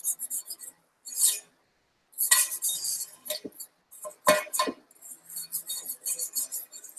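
Hardened Bondo body filler being scraped off a glass mixing board: quick rasping scrape strokes across the glass, broken by louder clattering knocks about two and four seconds in.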